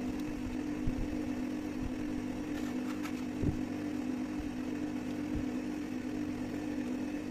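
Steady machine hum with a constant low tone, and two light knocks of small metal parts being handled, about a second and three and a half seconds in.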